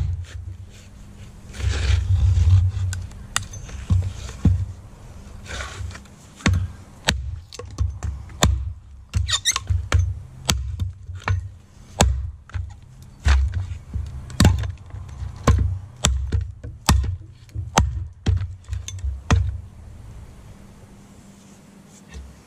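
A Wenger Blades Beohawk hatchet chopping into a 4-inch log on a stump: a long run of blows, roughly one a second. Each blow is a sharp crack of the blade biting wood with a dull thud beneath it, and the blows stop for a couple of seconds near the end.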